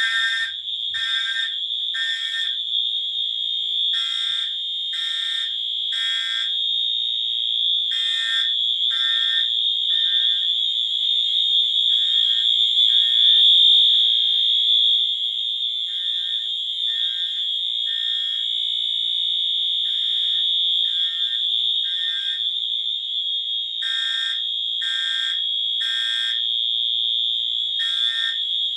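Two fire alarm horns sounding together, very loud: a Wheelock HS4 horn strobe set to continuous gives one unbroken high-pitched horn tone, while a Wheelock Integrity horn sounds temporal code 3, three short blasts then a pause, repeating about every four seconds.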